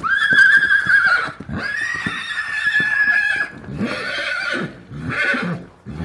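Horse whinnying: four high calls, the first two long and held at a steady pitch, the last two shorter.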